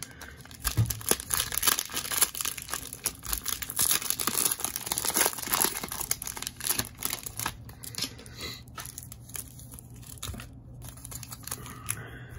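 Cellophane wrapper of an Optic retail cello pack of trading cards crinkling and tearing as it is pulled open by hand, busiest in the first half and thinning out later.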